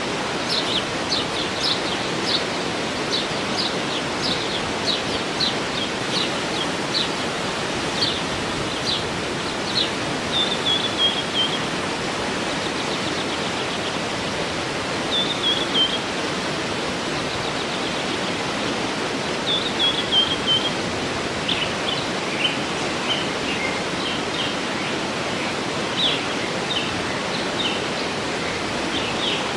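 Waterfall rushing steadily, with birds singing over it: many short, high, sharply falling notes in quick runs, and now and then a brief trill that slides down in pitch.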